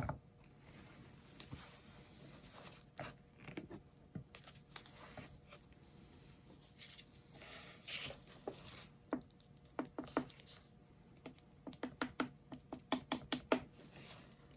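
Light clicks and taps from a hand-turned paint-pouring turntable as the wet tile on it is spun. A knock comes at the start, and near the end a quick run of even ticks, about five a second.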